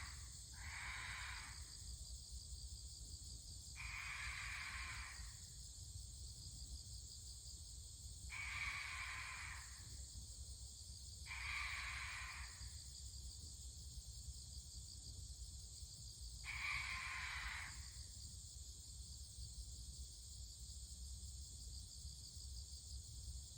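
Ural owl giving its harsh, drawn-out screeching "gyaa" call five times, each about a second and a half long and several seconds apart, over a steady high chorus of autumn insects.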